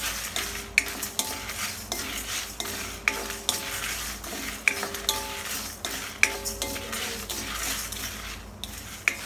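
A spatula stirring coriander seeds, dal and dried red chillies as they dry-roast in an iron kadai: a steady scraping and rattle of seeds against the pan, with a sharp clink of the spatula on the metal about once a second.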